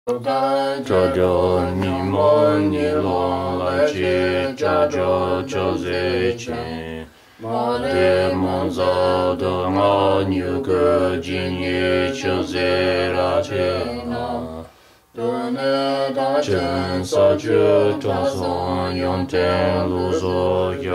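Tibetan Buddhist prayer chanted in long melodic phrases, with two short breaks about seven and fifteen seconds in.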